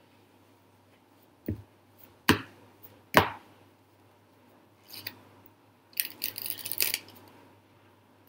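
A deck of playing cards being handled: three sharp taps as the deck is squared, then about a second of rapid crackling as the card edges are riffled.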